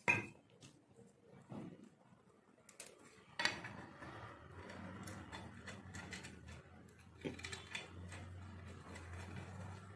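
Light clicks and knocks of steel stand parts, small screws and an Allen key being handled on a hard floor, the sharpest right at the start and about three and a half seconds in. A faint steady hum sets in about three and a half seconds in.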